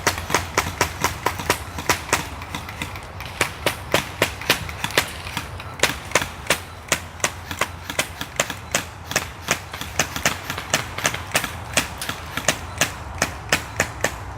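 Quick, even footsteps of a person running, about three to four steps a second, over a low rumble of movement.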